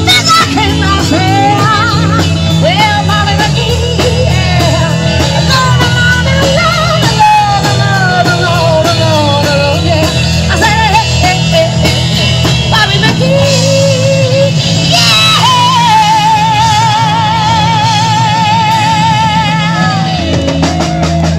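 Live rock band playing: drums, bass and electric guitar. A lead line slides and bends over the beat, then about fifteen seconds in a long held note with a fast, even vibrato takes over until near the end.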